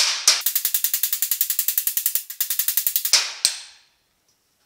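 Steel body hammer rapidly tapping a dent out of the 1950 Chevy truck's sheet-steel grille brace against a handheld dolly: a quick, even run of light taps, about ten a second, then two harder blows about three seconds in.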